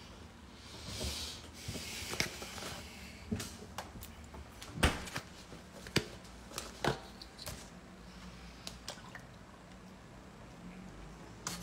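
Handling noise from a phone held in the hand: scattered clicks, taps and rustles, with a short hiss about a second in and the sharpest knock near the middle.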